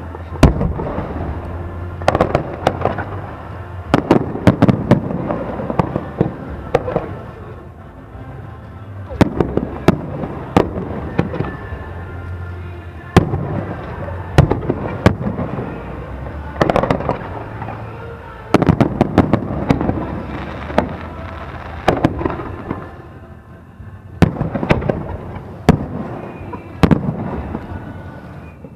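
Aerial fireworks display: shells bursting in volleys of sharp bangs, several in quick succession, with lulls of a second or two between the volleys.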